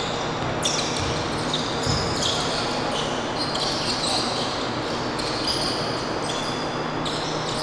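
Basketball game sounds on a hardwood gym court: the ball bouncing and sneakers squeaking in short, high-pitched chirps as players run and cut, over a steady low hum of the hall.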